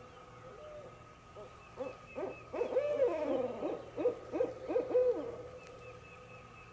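A mating pair of barred owls calling together in an excited duet of overlapping hoots and rising-and-falling wavering calls, lasting about four seconds.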